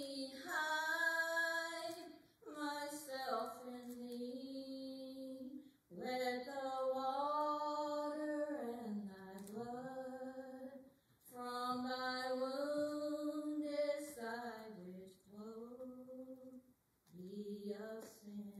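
A woman singing a slow gospel hymn unaccompanied, holding long notes with vibrato in phrases of a few seconds, with short breaths and near silence between them.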